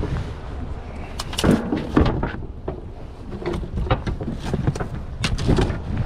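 Wind buffeting the microphone over a low rumble, with a scatter of sharp knocks and clatters as a wooden-handled landing net is picked up and handled against the boat.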